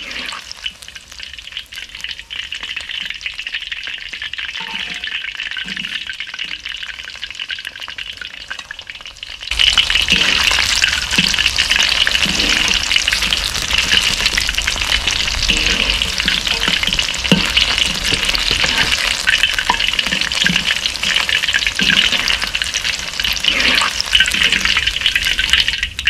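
Battered vegetable tempura deep-frying in oil in a wok: a steady crackling sizzle that turns suddenly much louder about a third of the way through, with occasional light knocks of a metal skimmer against the wok.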